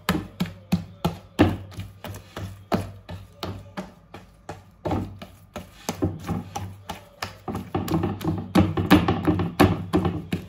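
Wet, sticky sfenj dough being kneaded and slapped by hand: irregular wet slaps about two or three a second, coming thicker near the end. The dough crackles and pops as it is worked, the sign that it is becoming well kneaded and elastic.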